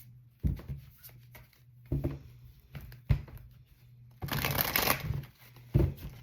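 Tarot cards being shuffled: a few short knocks and taps as the deck is handled, then a brief riffle about four seconds in.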